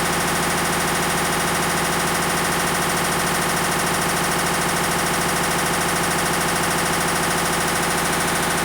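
Hitachi BeatWash top-loading washing machine running its spin cycle with a loud, steady mechanical racket of fast, even pulsing. The noise is the sign of a failed clutch, the part the owner blames.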